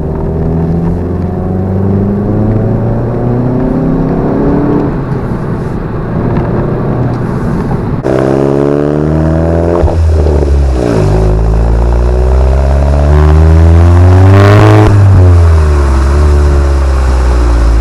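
VW Golf GTI MK7's 2.0-litre turbocharged four-cylinder engine pulling up through the revs in sport mode through a resonator-deleted exhaust, louder from about eight seconds in with a short drop near ten seconds, then falling in pitch as it eases off near the end.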